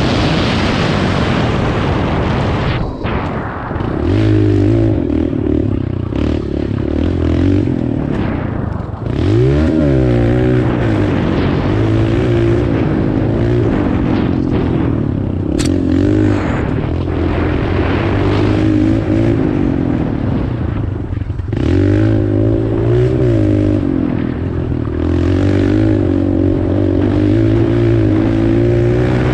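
Dirt bike engine being ridden hard, its pitch climbing and falling with the throttle, with a sharp rev-up and drop about nine seconds in and brief let-offs near three and twenty-one seconds. Wind noise on the microphone in the first couple of seconds.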